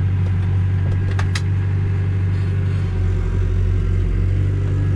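Tractor engine running steadily, heard from inside the cab, while its hydraulics tip a trailer load; two sharp clicks a little over a second in.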